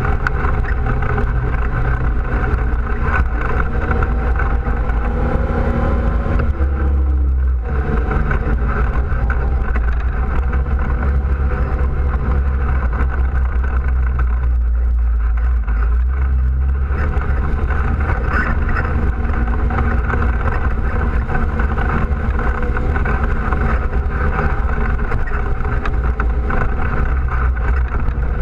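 ATV engine running steadily under way, with a heavy low rumble; the engine pitch rises and falls briefly about six to seven seconds in.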